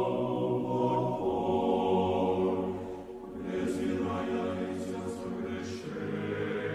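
An Orthodox church choir chanting, singing long held chords that change about a second in. A few short hissing sounds come through in the middle.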